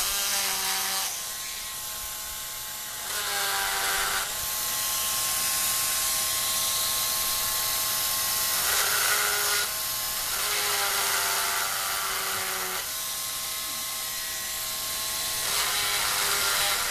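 Small rotary tool with a sanding drum running at high speed, a steady whine that shifts in pitch and loudness every few seconds as the drum is pressed against the work and eased off.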